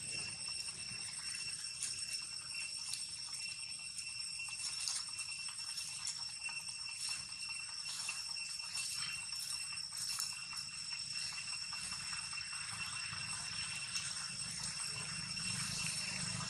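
Steady, high-pitched insect trilling, one held tone with fainter overtones above it, with scattered light clicks and rustles.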